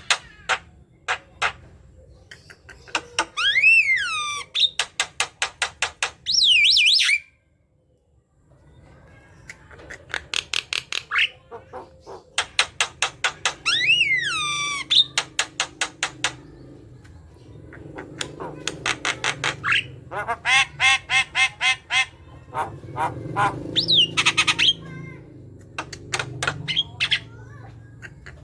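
Javan myna (jalak kebo) singing a loud chattering song. It mixes fast rattling runs of short harsh notes with whistled notes that slide up and down. The song comes in bursts, with a brief break about eight seconds in.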